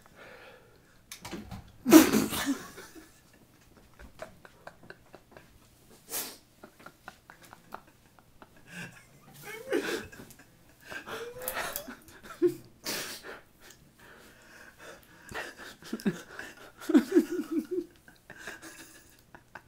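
Laughter in short broken bursts with breaths between. The loudest burst is about two seconds in, and a run of quick laughs comes near the end.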